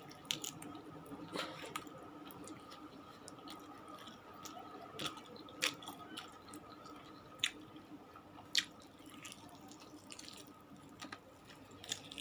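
Close-up eating sounds: chewing of fried chicken with scattered wet mouth clicks and smacks, over a faint steady hum.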